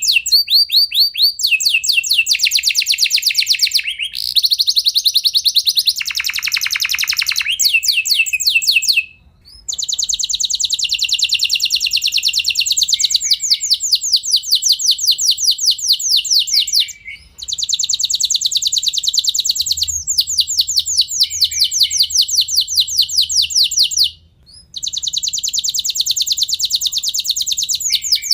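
Domestic canary singing long rolling trills: fast runs of rapidly repeated high notes that change pattern every few seconds, broken by brief pauses about 9, 17 and 24 seconds in.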